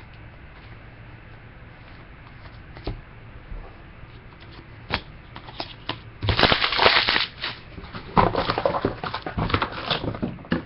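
Trading-card pack and cards being handled: a few light clicks, then stretches of crackly crinkling from the foil pack wrapper about six seconds in and again near the end.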